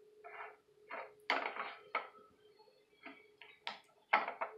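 A utensil scraping cold, stiff peanut butter out of a jar, in a series of about eight short scrapes and clinks.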